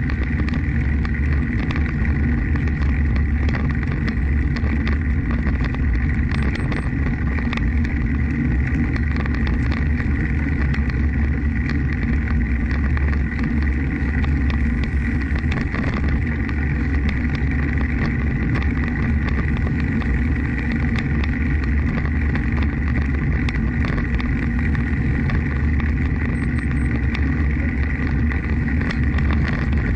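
Wind buffeting the microphone of a camera on the move, with rolling noise: a steady low rumble with frequent small rattles and a faint steady whine.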